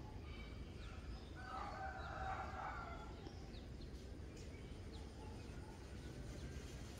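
A rooster crowing once, a drawn-out call of about a second and a half starting about a second in, with a few short high chirps around it.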